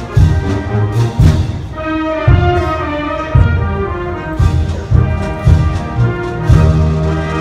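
Brass band playing a patriotic march: held brass chords over a steady bass drum beat.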